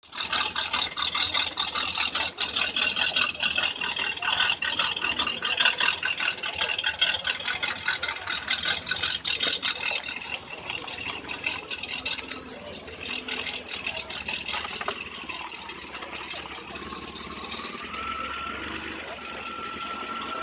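An engine idling with a rapid, even pulsing beat; it drops in loudness about halfway through.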